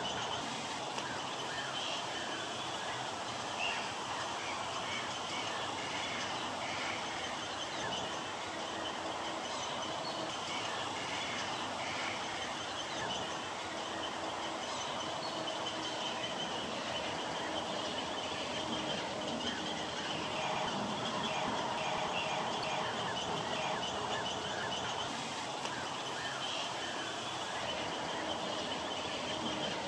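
A dense, steady chorus of many small bird calls and chirps, with no single call standing out above the rest.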